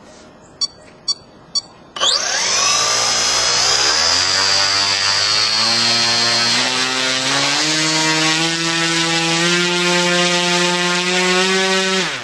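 A Turnigy CA 120-70 brushless outrunner motor swinging a 30x10 propeller starts abruptly about two seconds in, after a few short clicks. It runs at high power for about ten seconds, the propeller drone climbing slowly in pitch under a high electric whine, then cuts off suddenly. The owner believes it is hitting the speed controller's current limit at full throttle.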